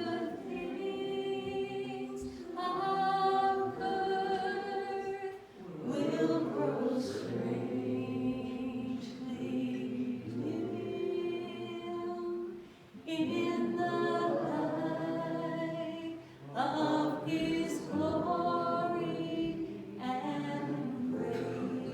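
Group of voices singing a song together in long held phrases, with short breaths between phrases.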